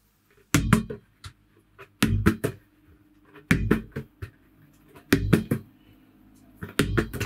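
A volleyball being bounced and caught five times at a steady pace, about one and a half seconds apart. Each bounce is a sharp slap followed by a quick knock or two.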